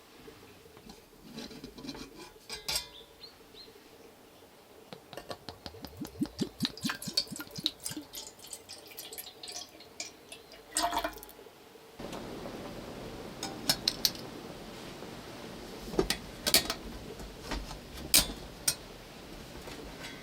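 Dishes and utensils clinking and knocking as they are handled, with a run of quick rattling clicks in the middle. About two-thirds of the way through a steady hiss starts, with more clinks over it.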